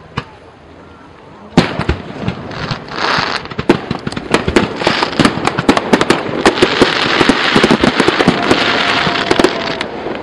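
Fireworks going off: a sharp bang about a second and a half in, then a dense, rapid string of bangs and crackling over a steady hiss, with a brief whistle tone near the end.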